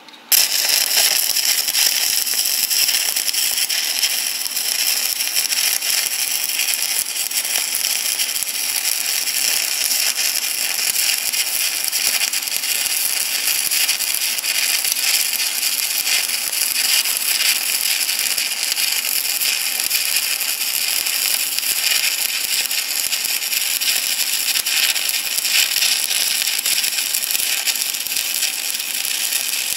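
Electric arc welding: the arc strikes about half a second in and then crackles and sizzles steadily as a weld bead is run.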